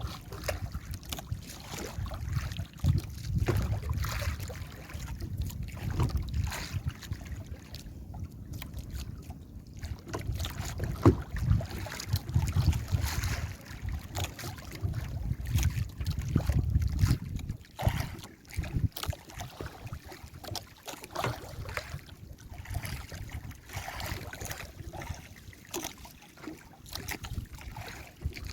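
Wind buffeting the microphone and waves sloshing and slapping against a small fishing boat in a rough sea, with irregular knocks. The gusty low rumble rises and falls.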